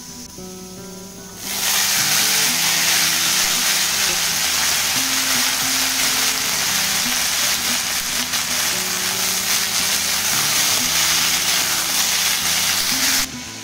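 Sliced bitter gourd, green beans and potato frying in hot oil in a kadai, a loud steady sizzle that starts suddenly about a second and a half in and cuts off just before the end, with the vegetables being stirred with a metal spatula. Background music plays throughout.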